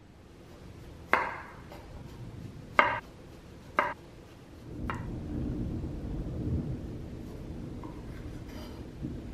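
A santoku-style chef's knife slicing a cucumber into rounds on a wooden cutting board: four sharp chops, the blade hitting the board about once a second. They are followed by a few seconds of softer, steady low rubbing as the knife works on a cherry tomato.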